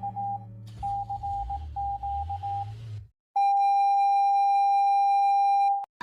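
Emergency alert broadcast tones: quick beeps of a single mid-pitched tone in uneven groups over a low hum, then after a short break a steady tone held about two and a half seconds that cuts off suddenly.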